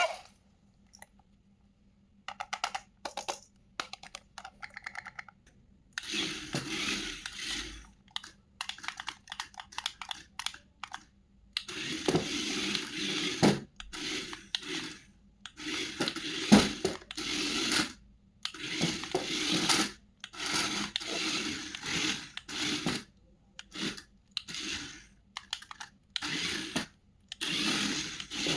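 Hands unpacking and handling toys: irregular scraping, rustling and clicking of plastic and cardboard in short bursts.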